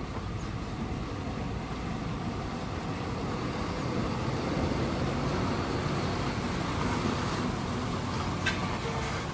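Isuzu tanker truck's diesel engine running as the truck rolls slowly closer, growing louder in the middle. A brief sharp sound near the end.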